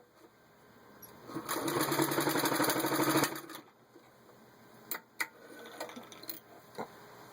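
Vintage 1940 Singer 66-8 sewing machine stitching through a 1/8-inch-thick leather belt: a fast, even run of needle strokes lasting about two seconds, starting a second and a half in. A few sharp clicks follow as the machine and work are handled.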